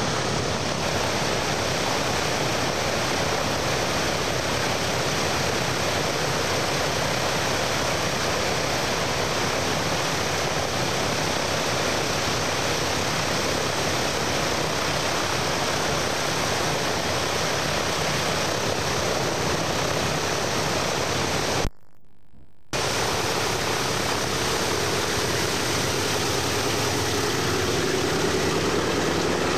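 Steady rushing noise, cut by a short dropout about 22 s in. Near the end, the drone of approaching B-17G Flying Fortress piston radial engines rises out of it.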